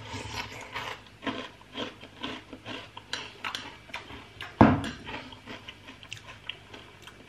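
Crunchy breakfast cereal in milk being chewed: a run of short, crisp crunches, two or three a second, with one louder knock about four and a half seconds in.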